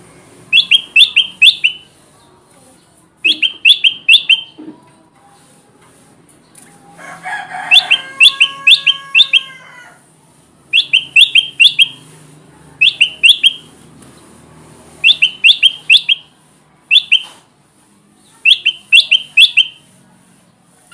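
Kutilang emas bulbul singing its lure song: short phrases of three or four quick, high, falling notes, repeated about every two seconds. About seven seconds in, a longer, lower call sounds under the song for about three seconds.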